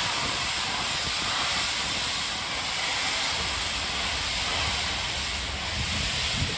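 Bulleid Battle of Britain class steam locomotive pulling away with a steady hiss of steam, over the low rumble of its coaches rolling past on the track.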